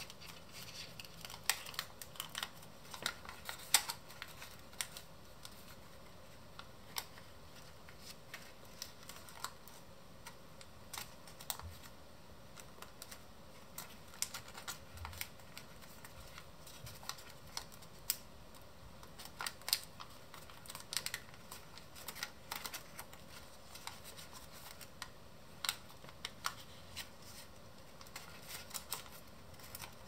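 Sheet of origami paper being folded and creased by hand: irregular crisp crackles, rustles and taps, a few sharp louder crinkles in the first four seconds.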